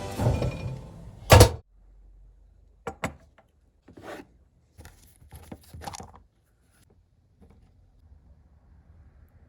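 A loud single thunk about a second and a half in, followed by several lighter knocks and clicks.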